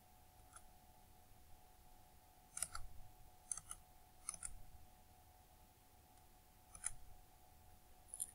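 Computer mouse clicking: scattered sharp clicks, some in quick clusters, over a faint steady hum.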